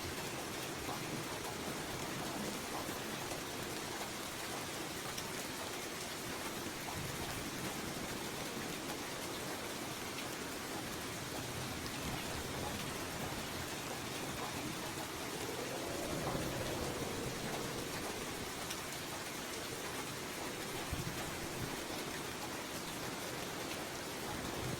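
Steady rain falling, an even hiss of many drops with no thunder, swelling slightly about two-thirds of the way through.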